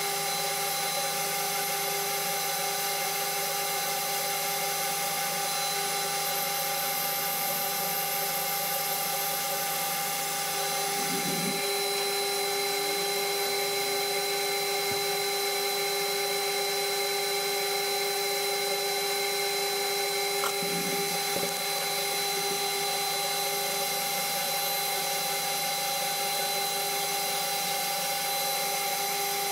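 Small metal lathe running steadily under power, its motor and gearing giving an even whine, while a small part is turned and filed in the chuck.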